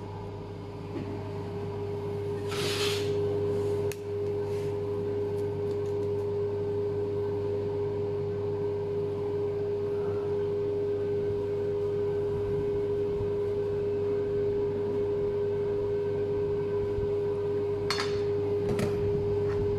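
A steady machine hum with a constant tone, with a short scrape about three seconds in and another near the end, as a knife works against the cake and the plastic cutting board.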